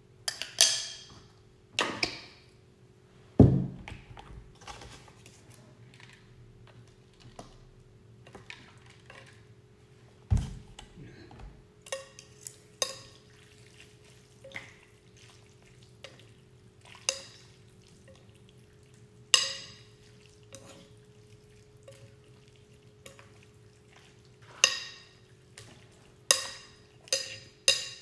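A metal spoon and wooden chopsticks clinking and scraping against a ceramic bowl as instant noodles are stirred in broth: a string of separate sharp clinks, coming thicker near the end. There are two dull thumps, the loudest a few seconds in and another about ten seconds in.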